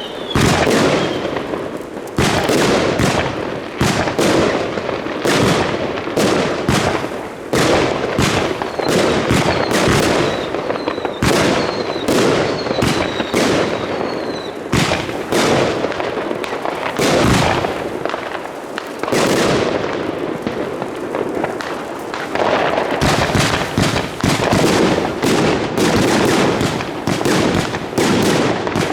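Fireworks going off in rapid succession: many sharp bangs close together, with a few short high whistles in the middle, the bangs coming thickest near the end.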